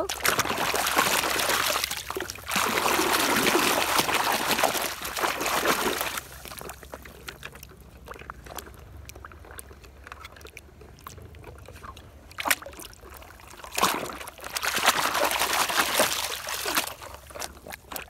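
Water sloshing and splashing as a muddy plastic toy auto rickshaw is swished and rubbed clean by hand under water. It comes in bursts, with a quieter stretch in the middle broken by a couple of sharp knocks.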